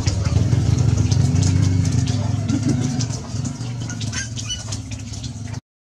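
An engine running steadily with a low hum, easing off after about three seconds, with birds chirping faintly above it; the sound cuts out abruptly near the end.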